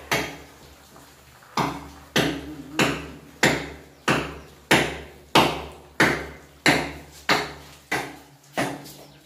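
A hammer striking over and over at a steady, even pace, about one and a half blows a second, each blow sharp with a brief ring.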